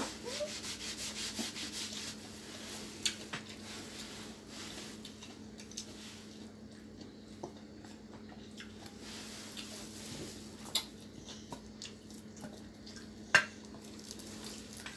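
Quiet table sounds of eating: wooden chopsticks clicking and scraping against bowls and stainless-steel dishes, with a few sharper clicks now and then, over a steady low hum.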